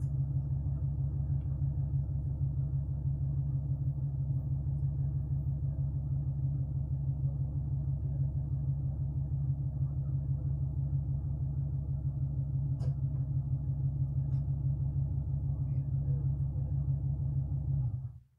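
Steady low mechanical hum, an even drone that runs unchanged and then cuts off suddenly about eighteen seconds in.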